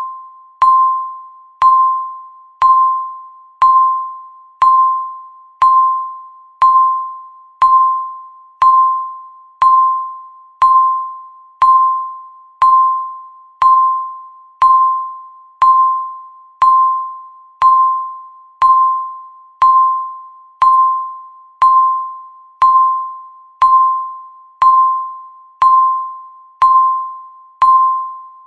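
Countdown timer's tick sound, once a second: each tick is a sharp click with a ringing, bell-like tone that fades away before the next one.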